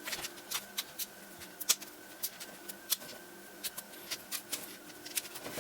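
Small, sharp plastic clicks and ticks at irregular intervals as a flat-head screwdriver pries a laptop's plastic screen bezel loose from the lid, its snap-fit clips working free.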